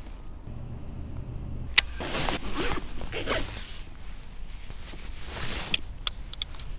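Rustling and clicking handling noise: one sharp click about two seconds in, then two bouts of scraping, rustling noise with a few smaller clicks near the end.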